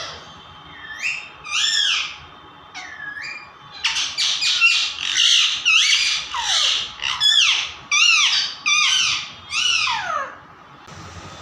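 Pet parrot squawking: a few scattered calls at first, then a fast run of loud, rising-and-falling screeches lasting about six seconds, which stops shortly before the end.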